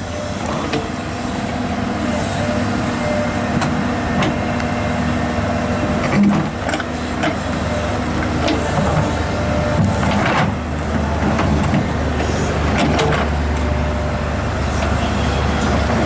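Komatsu PC200-8 hydraulic excavator's six-cylinder diesel engine running under hydraulic load as the boom and bucket work, with scattered sharp metal clanks and knocks from the loose steel track chain and bucket. The low engine rumble grows stronger about two-thirds of the way in.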